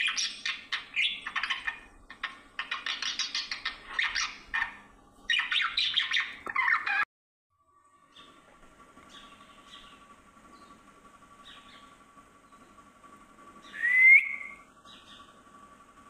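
Budgerigars chattering and warbling in quick, dense chirps, which cut off abruptly about seven seconds in; after that it is much quieter, apart from one loud rising chirp near the end.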